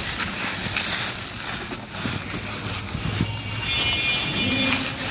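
Plastic wheels of a child's ride-on toy bike and a child's footsteps rustling and crunching through a carpet of dry fallen leaves, with wind on the microphone.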